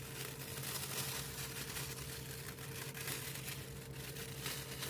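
Plastic oven bag rustling and tearing as it is opened off a freshly roasted turkey, over a steady low hum.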